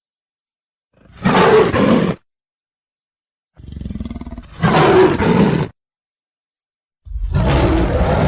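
Sharptooth's tyrannosaur roar sound effect, played three times with short silences between. Each roar lasts a second or two; the second starts with a quieter stretch before it swells to full loudness.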